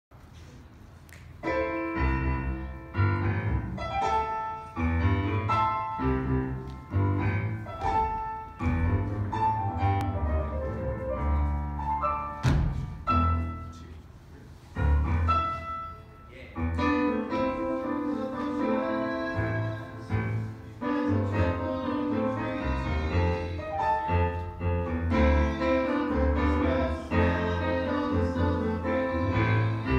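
Piano playing an upbeat accompaniment, bass notes and chords struck in a steady rhythm, starting a second or two in with a brief lull about halfway through.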